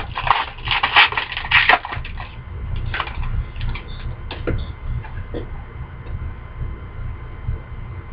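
Crackling and crinkling of a trading-card pack wrapper being opened and handled, dense for about the first two seconds and then thinning to scattered clicks, over a steady low hum.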